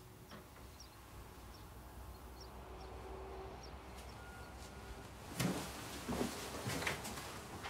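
Quiet room tone with faint, short high chirps, then a few sharp knocks and scuffs in the last two seconds.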